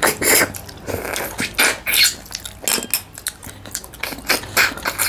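Close-up eating sounds: chewing with scattered sharp clicks and clinks of a spoon against a plate or bowl.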